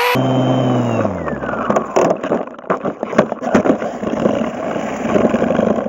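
Radio-controlled car's motor whining and falling in pitch as it slows over the first second or so. Then a steady rolling rattle of its wheels on the skatepark concrete, with scattered knocks and clicks.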